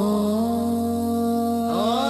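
Sufi qawwali singing: one long vowel held on a steady pitch, with a low steady hum underneath. Near the end a second line slides upward in pitch.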